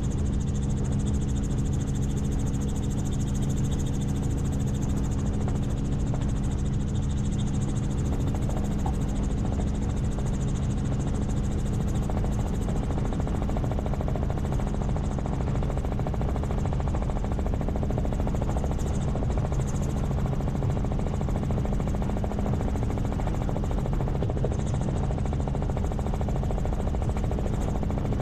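Helicopter in flight: steady engine and rotor drone with a constant low hum, unchanging throughout.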